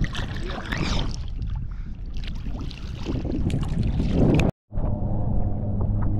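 Water sloshing and wind rumbling on the microphone of a camera out in the surf. There is a brief gap of silence about four and a half seconds in, and after it a low steady hum sits under the water noise.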